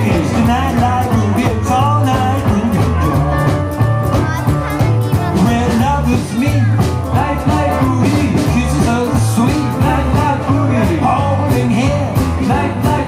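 Live jump blues band playing an uptempo boogie: upright bass, drums and piano keep a steady beat, with a voice at the microphone over it.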